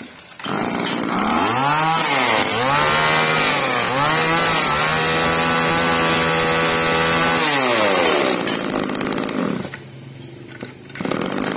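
Mitsubishi TL100 two-stroke brush cutter engine starting about half a second in and revved up and down twice. It is then held at high revs for about three seconds, drops back to idle and stops about ten seconds in.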